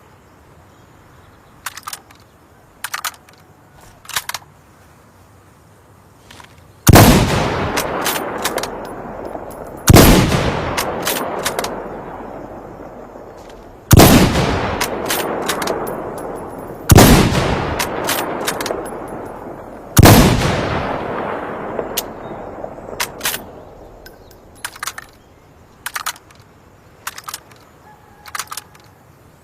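Five shots from a Mosin-Nagant bolt-action rifle in 7.62×54mmR, spaced about three to four seconds apart, each followed by a long fading echo. Short, faint mechanical clicks come before and after the shots.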